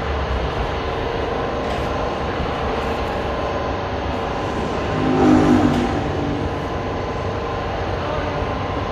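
Steady background din of a car-accessories shop with a constant hum, and a vehicle passing about five seconds in that swells louder and fades.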